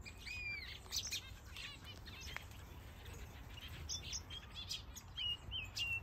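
Many small aviary birds calling and chirping together: an arching whistle near the start, quick chirps and short trills, then a few brief level whistles near the end.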